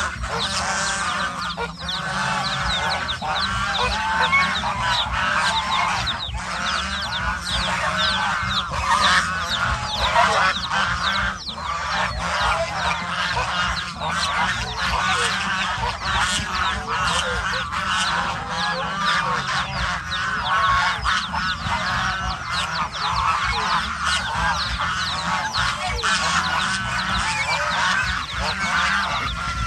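A flock of domestic geese honking continuously, many calls overlapping one another.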